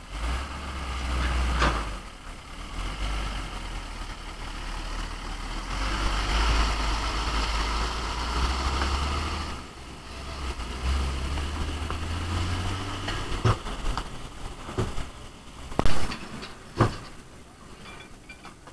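Hino Ranger 500 dump truck's diesel engine running, its revs rising and falling as the truck maneuvers, with a few sharp knocks near the end.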